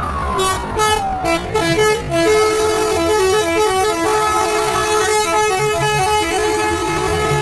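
Bus telolet horn, a set of multi-tone electric horns, playing a tune of short stepped notes that change pitch several times a second, then longer held notes in the second half.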